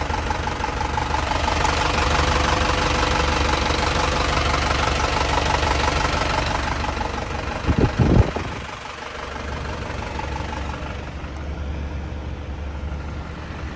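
Isuzu Elf dump truck's 3.7-litre diesel engine idling steadily, louder at first and quieter after a couple of low thumps about eight seconds in.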